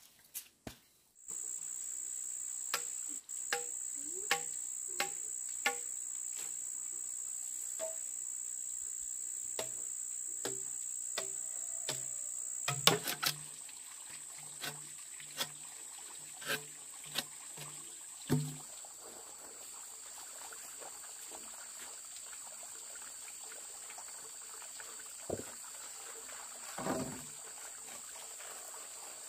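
Insects keeping up a steady high-pitched whine, with a second, lower whine joining about two-thirds of the way through. Scattered sharp knocks and taps sound over it, including a run of knocks about one or two a second as a knife works a green bamboo tube.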